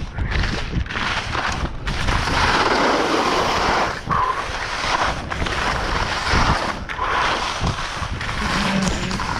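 Skis scraping and hissing through soft, slushy spring snow in linked turns, the noise swelling and dropping about once a second, with wind rushing on the microphone and a few low thumps.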